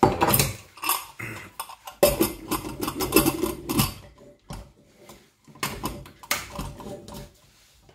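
Metal lid of a pressure cooker clanking and scraping against the pot in several bursts as it is fitted on and its handles are brought together to lock it.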